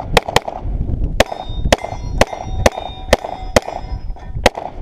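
Pistol shots fired in a string: a quick pair at the start, then about two a second, with steel targets ringing after the hits.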